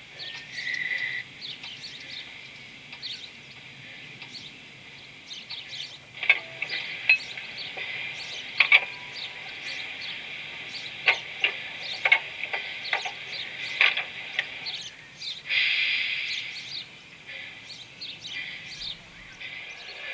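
Birds chirping, many short sharp calls scattered throughout, over a steady high hiss that swells briefly about three-quarters of the way through.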